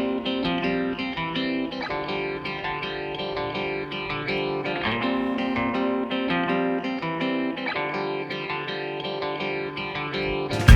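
Background music led by plucked guitar, picking out a melody over sustained chords.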